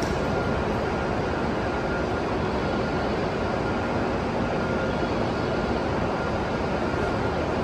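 A 521-series electric multiple unit standing at the platform, its onboard equipment running with a steady whir, and a faint high tone that comes and goes.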